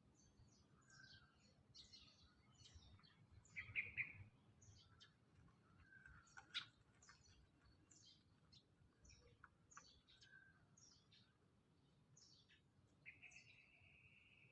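Faint bird chorus: many short, falling chirps keep coming, with a louder call about four seconds in and one long, steady high whistle near the end.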